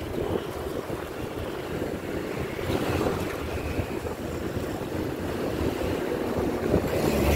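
Wind rushing over the microphone and road traffic heard from a moving vehicle, with motorcycles and cars passing close by. A deeper low rumble swells near the end.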